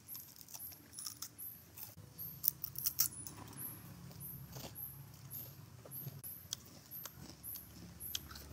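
Chewing and crunching of crispy fried potato pieces: a scatter of small crackles and clicks, a few louder crunches about two to three seconds in.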